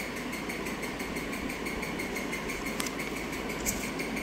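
A small motor running steadily with a fast, even pulse of about five beats a second. A couple of brief paper crinkles come from banknotes being handled near the end.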